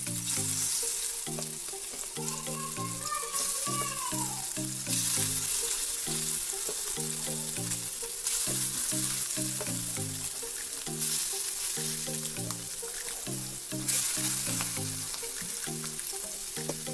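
Marinated bral (striped snakehead) pieces sizzling in hot coconut oil in a frying pan, the sizzle jumping suddenly louder about five times as pieces are laid in one by one. Background music with plodding low notes plays along.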